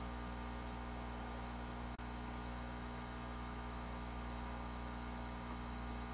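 Steady electrical mains hum with a layer of hiss, and one brief click about two seconds in.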